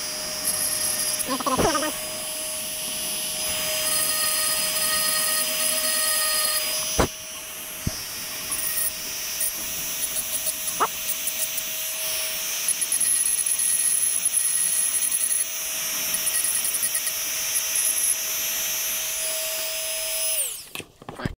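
Dremel rotary tool running at a steady high-speed whine, its grinding bit working along the edges of a 3D-printed plastic boat propeller. There are a few sharp clicks as the bit catches. The tool winds down and stops near the end.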